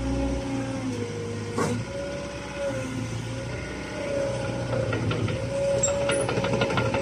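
Caterpillar 306.5 mini excavator running: a steady diesel engine hum under a hydraulic whine that dips and rises in pitch several times as the machine works. There is a sharp clank about a second and a half in, and a run of light clanks near the end.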